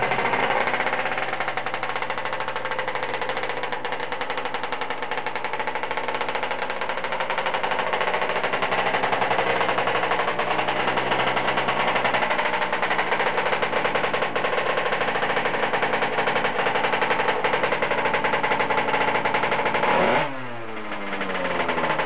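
Tuned two-stroke engine of a Peugeot Zenith scooter running through a Cristofolini exhaust at a steady speed. About twenty seconds in, its revs drop sharply, then pick up again.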